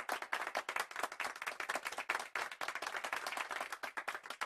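Audience applauding, a dense patter of hand claps from a modest crowd.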